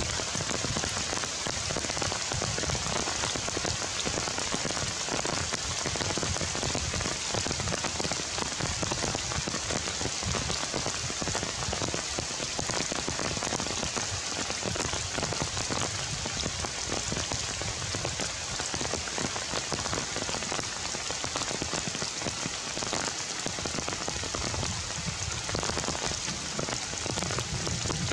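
Steady heavy rain falling through forest foliage, a dense, even patter of drops on leaves.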